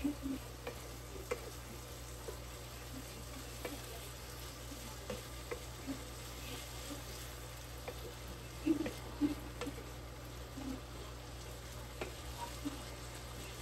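Wooden spatula stirring and scraping sautéed bottle gourd and ground pork in a nonstick frying pan, with scattered light knocks against the pan over a faint sizzle. A pair of louder knocks comes about nine seconds in, over a steady low hum.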